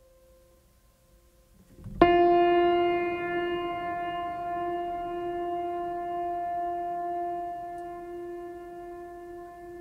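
Background music: faint soft tones, then about two seconds in a loud held chord that comes in suddenly and slowly fades.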